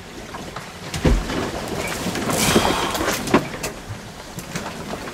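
A small sailboat working in heavy weather, heard from inside the cabin: a constant rushing noise, a heavy thump about a second in, a louder rushing surge a second later, and scattered knocks and rattles.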